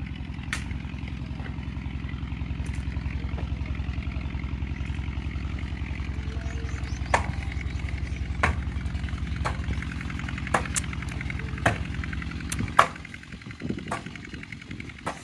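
A mattock striking hard, dry earth, about one blow a second from around seven seconds in, while the ground is being broken up and levelled. Under it an engine runs steadily with a low chug and cuts out a couple of seconds before the end.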